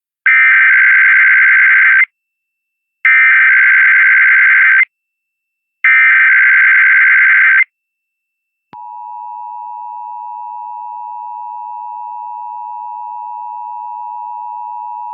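Emergency Alert System SAME header: three identical bursts of screechy digital data tones, each just under two seconds long with short gaps between. About nine seconds in comes the steady two-tone EAS attention signal, marking the start of an alert, here the coordinated monthly test.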